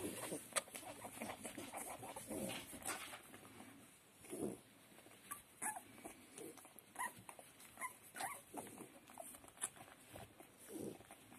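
A young puppy makes short, high squeaks and whimpers several times, mostly in the middle of the stretch, with a few low grunts and small scuffing clicks in between.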